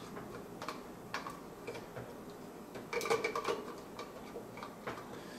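Lens being fitted and turned onto a Mamiya M645 1000s medium-format camera body: a string of small clicks and ticks from the metal mount and handling, busiest about three seconds in.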